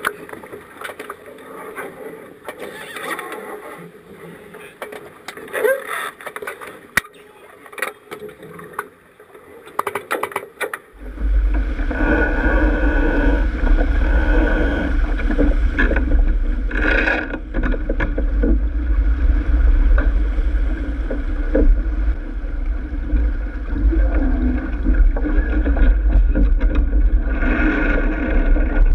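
Sailboat under sail: water rushing along the hull with scattered knocks and clicks from the boat, then about eleven seconds in it turns much louder, with wind buffeting the microphone as a heavy steady rumble under the hiss of water.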